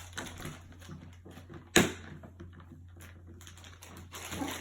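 Small plastic clicks and handling noises from the parts of a plastic toy battle stadium being fitted together, with one sharp snap just under two seconds in.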